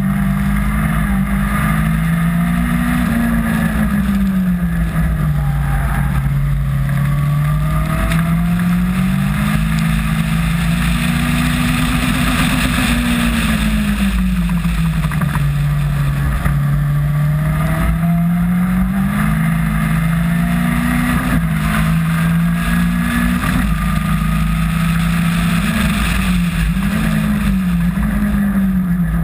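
Onboard sound of a Caterham R300 Superlight race car's engine at racing revs. Its pitch climbs and falls again and again with the throttle and gear changes, over a steady rush of wind and road noise.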